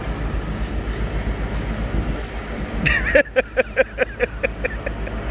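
Steady low hum of the ship's machinery. About three seconds in comes a short high cry, then a run of laughter, about five 'ha' pulses a second, that fades out after a couple of seconds.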